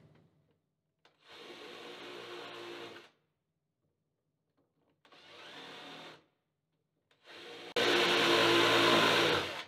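Cordless drill running a countersink bit into the bolt holes of a glued-laminated wood longboard deck, countersinking them so the bolt heads sit below the surface. It runs in three short bursts, the last the loudest.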